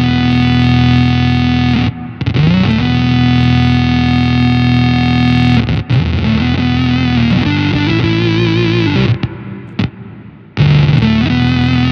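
Electric guitar played through an EarthQuaker Devices Data Corrupter PLL synth pedal, its fuzzy square-wave voice and subharmonic oscillator set two octaves down. Long held synth-like notes swoop up in pitch as each begins. A few quicker notes that step in pitch follow, then a short break and one more held note near the end.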